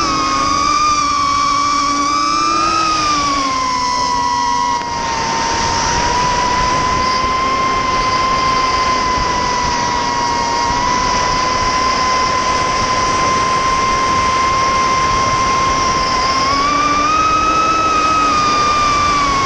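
Brushless motors and HQ 5x4x4 propellers of a Vortex 250 Pro racing quadcopter, running on a 4S battery, whining steadily in flight, heard from the onboard GoPro with a rush of wind and prop wash. The pitch falls a few seconds in and rises briefly near the end as the throttle changes.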